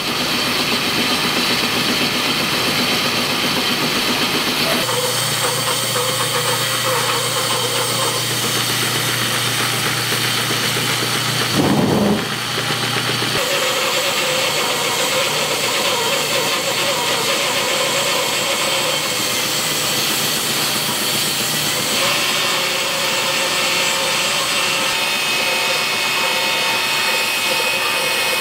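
Large bandsaw running and cutting a thick yellow cedar slab along a curve: a steady, loud noise of motor and blade in wood, with a brief louder burst about twelve seconds in.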